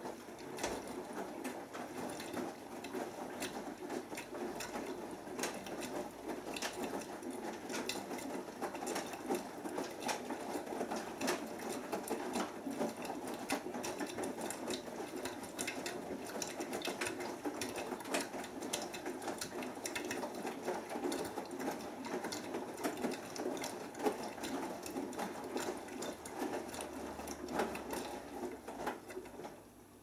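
Beko WMB81445L front-loading washing machine tumbling a wet load of clothes in its drum during the main wash of a cotton 40°C cycle: a steady, busy churning with a dense patter of small clicks and knocks. It stops abruptly near the end as the drum pauses.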